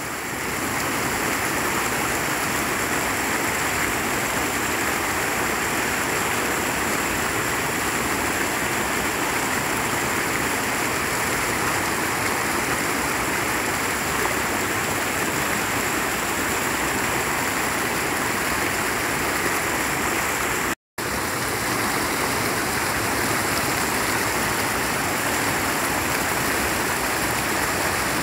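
Floodwater rushing steadily over a submerged concrete low-water crossing and spilling off its edge, a strong current still too fast to cross. The sound cuts out for a split second about two-thirds of the way through.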